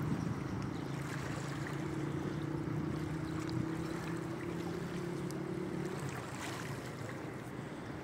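Small waves lapping at the shore, with wind on the microphone. Under them runs a steady low engine hum, a motorboat out on the water, that fades out about six seconds in.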